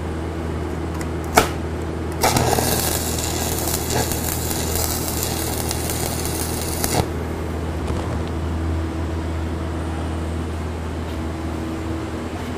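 Stick-welding arc with a 3/32" 7018 electrode crackling and hissing for about five seconds while a tack weld is burned in, then cutting off abruptly. A sharp tap comes just before it, and a steady low hum runs underneath.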